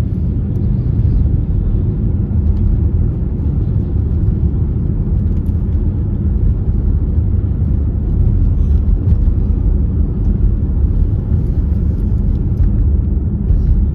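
Steady low rumble of road and wind noise in a car's cabin while driving in strong, gusty wind.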